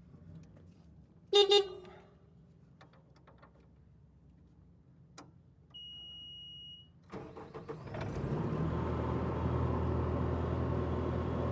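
A loud double horn blast about a second in, then a steady electronic beep lasting about a second as the ignition comes on. About seven seconds in, the Bobcat T750 skid steer's diesel engine cranks, catches and settles into a steady idle.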